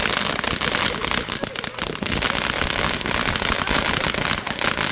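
Fireworks going off close by in a rapid, continuous barrage of crackling pops, many overlapping bangs a second without a break.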